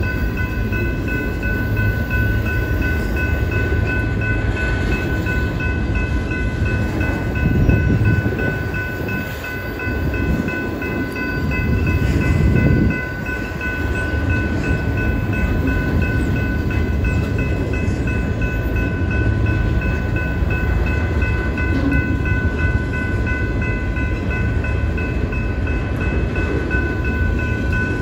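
Freight train of autorack cars rolling past, with a steady rumble and clatter of wheels on rail that swells twice near the middle. Over it a grade-crossing signal rings with a steady high tone.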